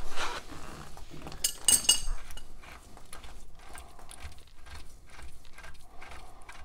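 Metal-on-metal clinks from a wrench on the front hub nut of a Ford Model A: two sharp ringing strikes in the first two seconds, then faint irregular clicking and scraping as the nut is worked loose by hand.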